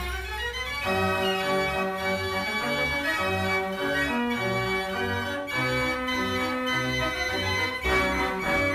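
An 89-key Marenghi fair organ playing a tune: a pipe melody over changing bass notes.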